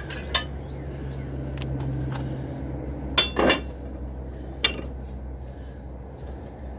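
Hand tools clinking and tapping on metal under a riding mower's deck during a blade change: a few sharp knocks, the loudest a pair about three seconds in, over a steady low hum.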